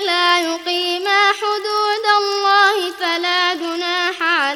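A voice reciting the Quran in melodic murattal style, holding long drawn-out notes with ornamented pitch bends, broken by short pauses for breath.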